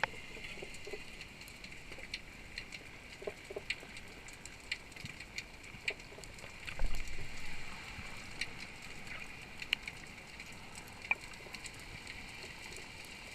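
Underwater ambience through a camera housing: a steady hiss with scattered sharp clicks and crackles, and one dull thump about seven seconds in.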